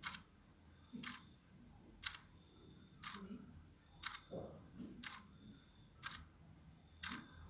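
Regular short clicks or ticks, about one a second, over a faint steady high tone.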